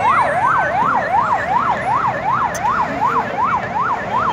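An electronic vehicle siren on a fast yelp, its pitch sweeping up and down about three times a second.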